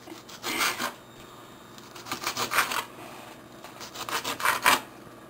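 Kitchen knife slicing a green bell pepper into strips on a plastic cutting board: three quick runs of cutting strokes.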